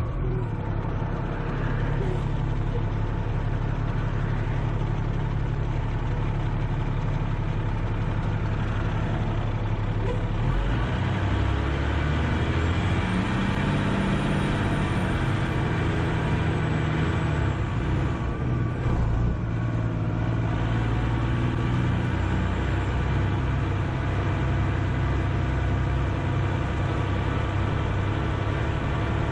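Fire engine's diesel engine running as the rig drives, heard from inside the cab as a steady drone. The engine note shifts about ten seconds in.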